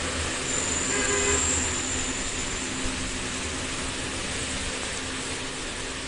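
Steady mechanical background noise with a constant low hum, as from running workshop machinery; no crimping strokes are heard.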